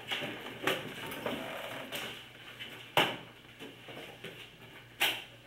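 Students getting out their notebooks: papers and covers rustling, with a few sharp knocks on the desks, the loudest about three seconds in and again near the end.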